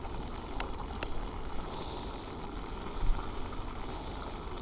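Crappie fillets sizzling in butter in a skillet over a propane camp stove turned up high: a steady frying sizzle with a couple of small pops.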